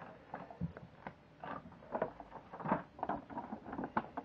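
Packaging of a trading-card box being handled: irregular soft rustles and light taps.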